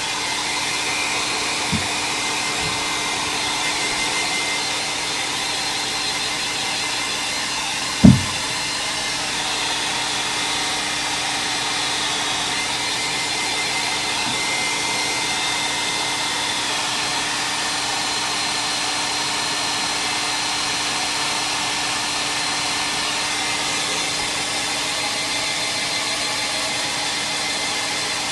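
Hand-held hot-air dryer running steadily, drying wet paint on an art-journal page before inking, with a faint steady whine over the rush of air. A small knock about two seconds in and a sharp loud thump about eight seconds in.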